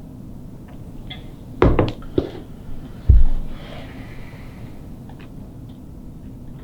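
Three sharp knocks in quick succession, then one heavy, low thump about three seconds in, over a steady low hum.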